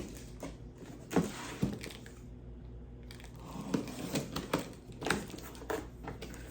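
A cardboard box being opened and its packaging handled: rustling, crinkling and tearing with scattered light knocks, quieter for a moment in the middle.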